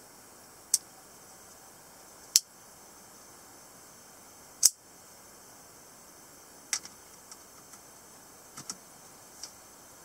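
Semiautomatic (spring-assisted) one-hand folding knife clicking as the blade snaps open and locks: three loud, sharp metallic clicks a couple of seconds apart, then several lighter clicks and taps in the last few seconds.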